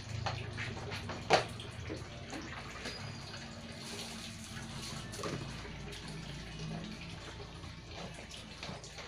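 Water poured from a plastic dipper into empty plastic bottles being rinsed, with splashing and small clicks of handled plastic. A single sharp knock about a second in is the loudest sound.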